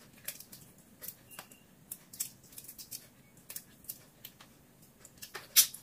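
Shrimp shells being peeled by hand: a sparse series of small, sharp cracks and clicks, the loudest near the end.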